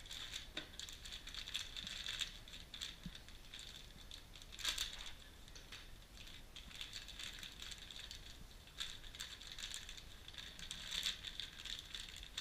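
Clear plastic parts bags and small parts boxes crinkling and rustling as they are handled, in irregular waves with small clicks and one sharper knock about halfway through.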